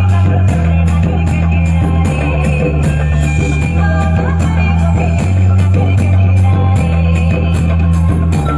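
Loud music played through a DJ sound system of four bass cabinets and six top speakers, dominated by a heavy bass line of long held notes that change every second or two.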